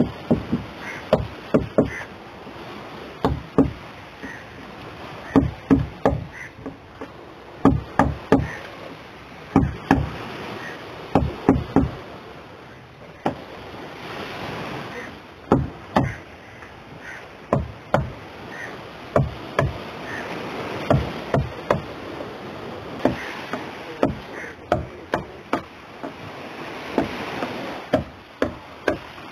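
Hammer and chisel knocking at a damaged fibreglass boat hull: sharp knocks in short runs of two to four, with pauses between, over a steady outdoor hiss.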